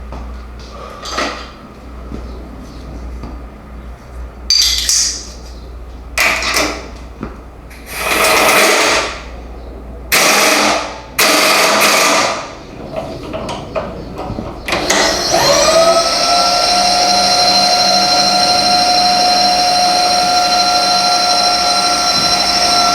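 Several short hissing blasts of compressed air, then about 15 seconds in a milling machine spindle spins up, rising quickly in pitch, and runs on at speed with a steady high whine.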